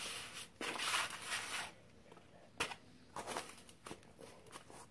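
Hands scraping and pressing kinetic sand in a metal baking tray: a scratchy rustle for the first second and a half, then a few sharp taps and clicks, the clearest about two and a half seconds in.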